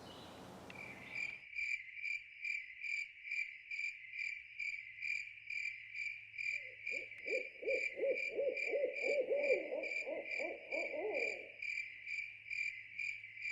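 Night ambience: a cricket-like insect chirping steadily, about three chirps a second, with an owl's quavering trill for about five seconds in the middle.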